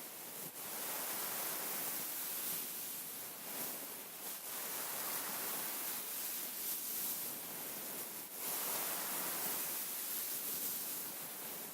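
Fingers scratching and rubbing across a beaded pillow, a continuous rustling hiss that swells and eases, with brief pauses about half a second, four seconds and eight seconds in.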